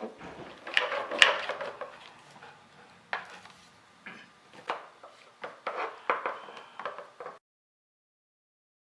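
Knocks and clatter of wood and tools being handled on a workbench, a couple of sharp knocks about a second in and scattered clicks after, then the sound cuts off to dead silence near the end.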